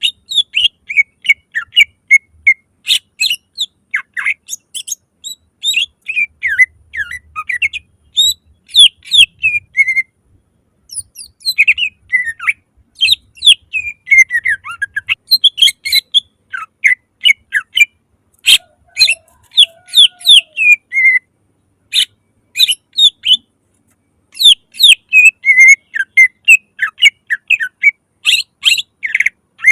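Cucak ijo (leafbird) singing loudly in fast runs of short chirps and quick sliding whistles, with brief pauses between bursts.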